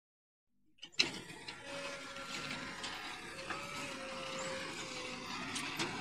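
Diesel tipper truck engine running as the truck drives across a dirt site. The sound starts about a second in with a sharp click, then holds steady, with a couple of knocks near the end.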